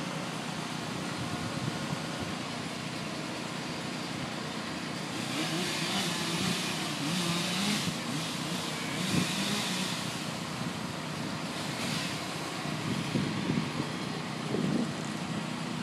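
An engine running steadily, louder for a few seconds in the middle.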